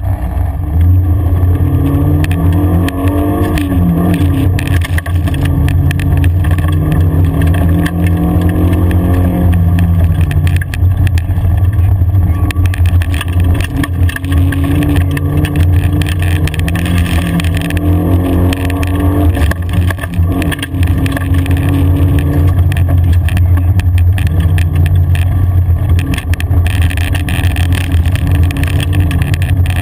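Car engine heard from inside the cabin while driving on a rough gravel track, the revs rising and falling repeatedly with acceleration and gear changes, over a steady low drone, with frequent knocks and rattles from the rough surface.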